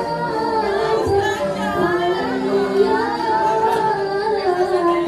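Music with a singing voice, held melodic notes over a steady accompaniment.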